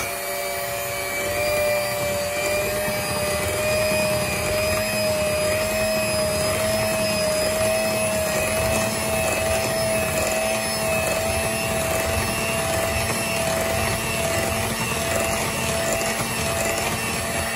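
Handheld electric mixer running steadily, its beaters whipping a thick pie batter in a bowl: a steady motor whine that climbs slightly over the first few seconds, then holds until it cuts off at the very end.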